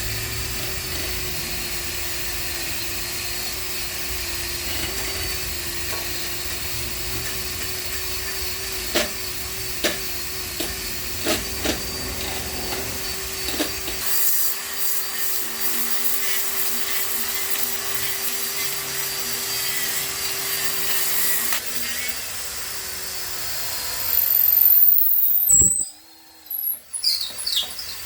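Electric power sander running steadily with a sanding pad on the rusty steel of a 10-bolt rear axle, its motor tone holding constant. It grows louder briefly near the end, then stops.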